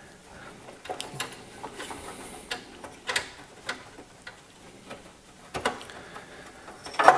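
Irregular light clicks and knocks of a Gotek floppy emulator and cables being handled and fitted into the drive bay of an open computer's metal case, with a sharper knock near the end.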